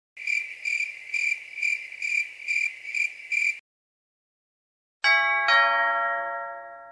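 Cricket chirping sound effect: a high chirp pulsing about twice a second for three and a half seconds, then stopping. After a short pause, a two-note chime sounds, the second note lower and half a second after the first, both ringing on and fading.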